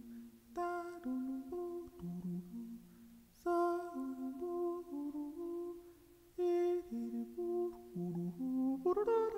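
A voice humming a slow, lullaby-like tune without words, note by note, in three phrases with a short break between each.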